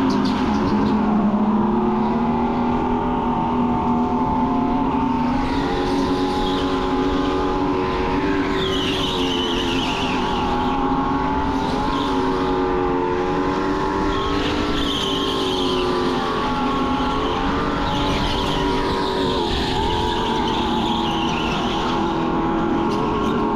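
Electric go-kart's motor whining steadily, its pitch rising and falling with speed through the corners, with the tyres squealing briefly several times.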